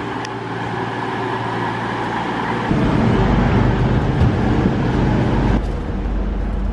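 Underfloor diesel engines of a CrossCountry Voyager diesel-electric train running with a steady hum; about two and a half seconds in it becomes a louder, deeper rumble, then eases off again near the end.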